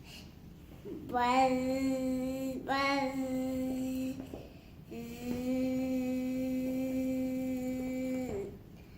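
A child singing long held notes on one steady pitch: two notes of about a second and a half each, then a longer note of about three seconds.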